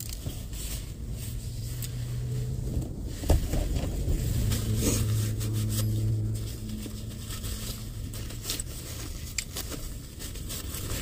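Paper napkin crinkling and small clicks and scrapes of a plastic fork being handled. A low hum comes and goes twice underneath.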